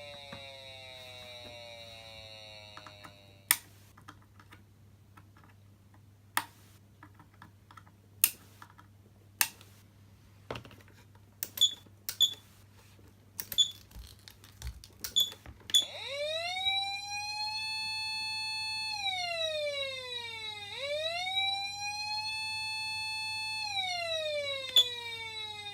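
Patlite SAP500BZ electronic siren amplifier. Its tone winds down over the first few seconds. Then come about a dozen sharp clicks. From about two-thirds of the way in, a wail tone rises to a steady pitch, holds, dips, rises and holds again, then falls away near the end.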